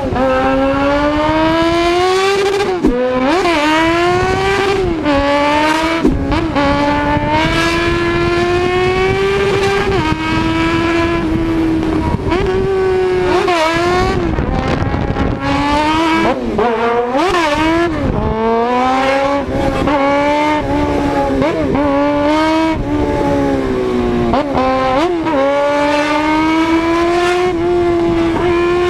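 Race car engine held at high revs, its pitch climbing slowly through each gear and falling back sharply at every gear change, with quick rev blips between some changes.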